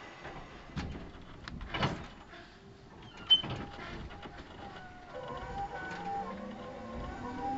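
JR 211 series 5000 electric train heard from inside its motor car as it pulls away: a few clunks and knocks as it starts moving, the sharpest about three seconds in, then from about five seconds in the traction motor whine rises steadily in pitch as it accelerates.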